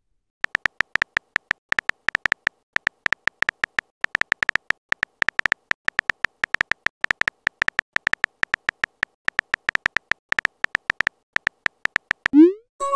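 Simulated phone-keyboard typing sound: quick, irregular short beeping ticks, several a second, one per letter as a message is typed out. A short rising swoop near the end marks the message being sent.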